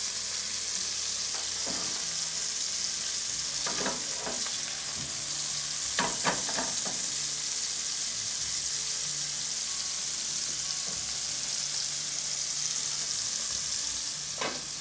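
Pheasant breast slices sizzling steadily in clarified butter in a frying pan, with a few light clinks of a metal meat fork against the pan as the pieces are moved, the loudest about six seconds in.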